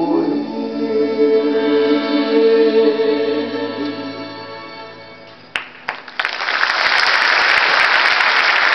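A song's closing chord, sung and held, fading out over about five seconds; then two sharp knocks, and about six seconds in the audience breaks into steady applause.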